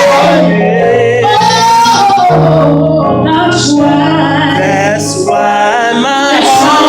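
A woman singing a wordless gospel vocal run, her voice sliding and bending through long held notes over sustained instrumental accompaniment.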